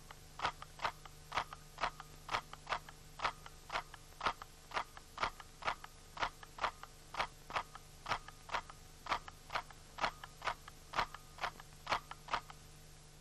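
Camera shutter clicking in a steady rhythm, about two clicks a second, over a faint steady hum.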